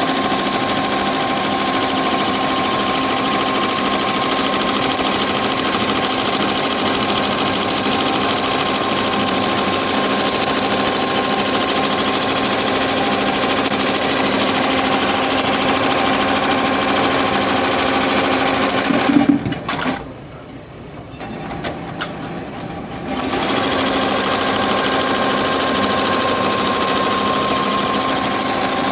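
Tajima TFMX-C1501 single-head 15-needle embroidery machine stitching steadily and making a rattling sound. About two-thirds in, a brief louder knock is followed by a drop to a quieter sound for about three seconds, and then it runs up again.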